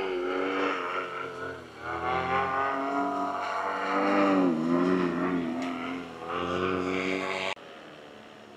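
Display aircraft's engine droning overhead, its pitch dipping and rising as it manoeuvres. About three quarters of the way through it cuts off abruptly to a much quieter background.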